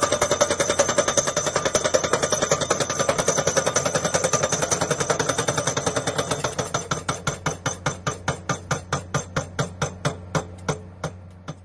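Hydraulic impact hammer of a crawler pile driver striking a steel pile in rapid, even blows over a steady engine hum, the pile ringing with each strike. The blows slow and space out toward the end and stop about eleven seconds in.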